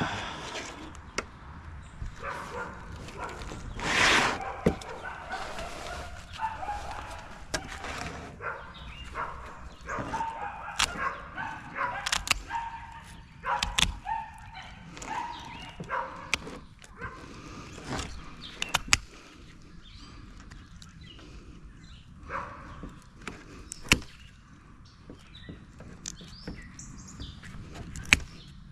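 Metal snips clipping through a sheepshead's stiff fin spines: a run of sharp, irregular clicks and crunches, with a noisier burst about four seconds in.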